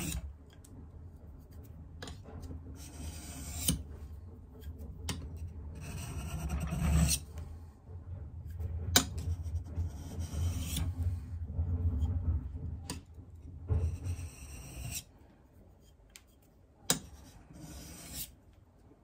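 Steel chisel being rubbed back and forth on a 1000-grit Faithful diamond sharpening stone to hone its edge: a rasping scrape in repeated strokes, with a few sharp clicks of the chisel against the plate. The strokes die away after about fifteen seconds.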